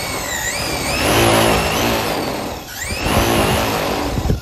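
Team Associated RC drag car's electric motor whining and its rear tires spinning on asphalt while the car is held in place: two throttle bursts that rise and fall in pitch, with a short dip between them, cutting off near the end. This is a tire warm-up burnout to give the slick drag tires more grip.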